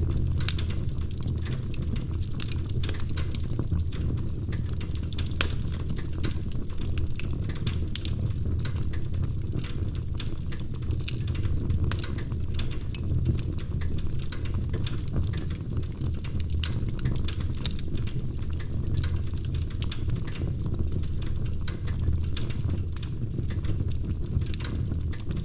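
Wood fire burning in a fireplace: a steady low rumble of the flames with frequent irregular crackles and sharp pops from the burning logs.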